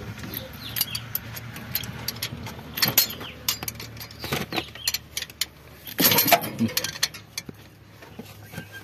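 Spanner and steel linkage rods clinking and clicking as they are worked on a Massey Ferguson 7250 tractor's control linkage, with a louder metal clatter about six seconds in. A low steady hum runs underneath.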